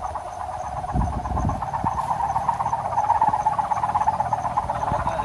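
Kite hummer (sendaren) droning in the wind: a steady buzzing hum with a fast warbling flutter, the 'ngukuk' tone. Wind rumbles on the microphone in gusts.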